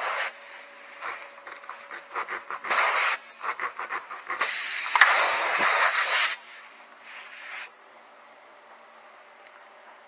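Tire plug kit's spiral reamer tool scraping in and out of a tire puncture in a run of rough rasping strokes, roughening the hole to take a plug. The strokes stop a little past halfway through, leaving only a faint background.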